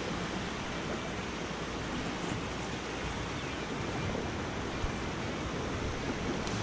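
Creek water flowing and rushing, a steady even rush with no distinct splashes.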